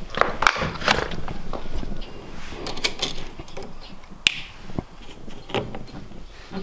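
Scattered sharp clicks and knocks with rubbing: a bike computer being handled at its handlebar mount on a road bike, along with camera handling noise. The loudest click, with a short ring, comes a little past the middle.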